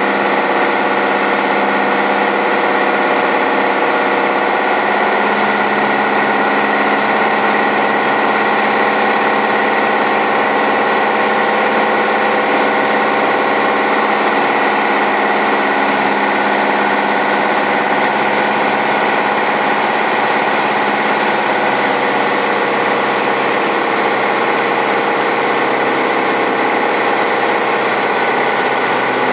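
Light single-engine airplane's piston engine and propeller running at a steady pitch, heard inside the cockpit as a constant drone with a hiss of airflow.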